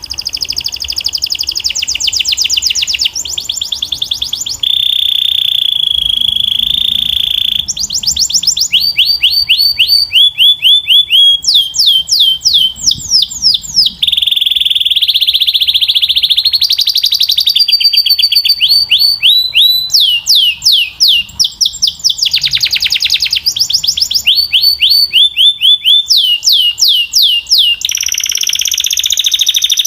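Belgian canary singing a loud, continuous song of varied phrases, each lasting a second or two: fast rattling trills of repeated sweeping notes alternating with steady rolled tones.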